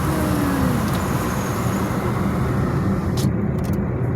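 Steady road noise of a car being driven, heard from inside the cabin: a continuous rumble of tyres and engine, with a short falling whine near the start.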